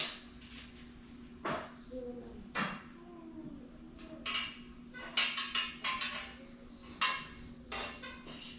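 Light metal clinks and knocks from the tubes and fittings of a steel toilet rack frame being handled and fitted together, several separate taps at irregular intervals.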